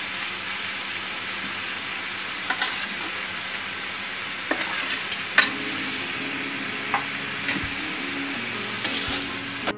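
Spiced jackfruit and potato curry sizzling steadily as it fries in a hot wok, with a few sharp clicks of a metal spatula against the pan.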